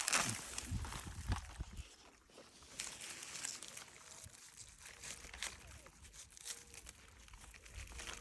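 Rustling and crinkling of plant leaves with a few light crunches as garden vegetables are handled and picked, louder in the first two seconds and fainter after.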